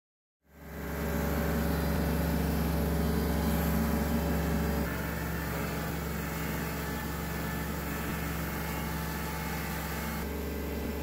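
Tractor engine running steadily, heard from the operator's seat. It fades in about half a second in and drops slightly in level about five seconds in.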